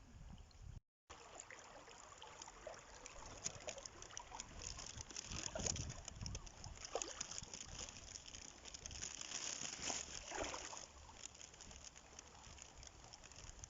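Swollen, fast-flowing river water rushing and splashing after rain, with a brief dropout about a second in.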